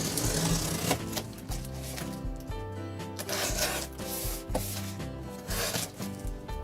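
Rustling and rubbing of a parcel being handled in several short bouts, over background music with a steady bass line.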